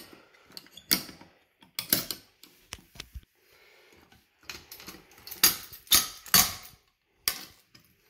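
An FCI manual fire alarm pull station being reset by hand: sharp metal clicks and clacks as its pull handle is worked back into place, with the key ring hanging from the reset lock jangling against the housing. The loudest clacks come in a cluster a little past the middle.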